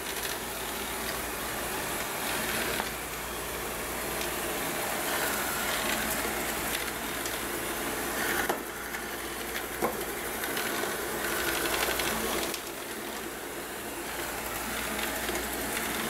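ILIFE A4 robot vacuum running, its suction fan and brushes whirring steadily as it works along the floor, with a couple of sharp clicks about halfway through.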